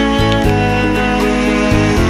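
Instrumental background music, sustained chords changing every second or so.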